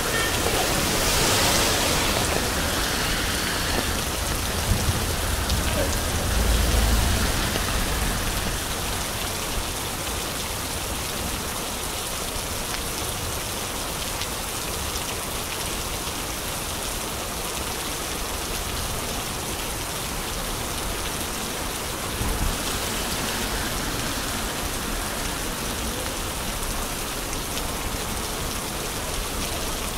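Steady rain falling on a wet street, with a brief low rumble about six to seven seconds in.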